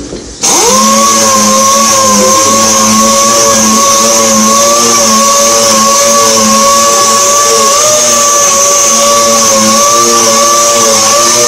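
Air-powered random orbital sander starting up about half a second in, then running steadily with a high hiss as it sands a polycarbonate headlight lens with a fine 2000-grit disc.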